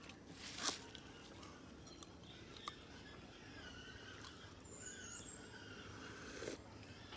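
Quiet room tone with a short rustle under a second in, a faint click a little later, and faint wavering high chirps in the middle.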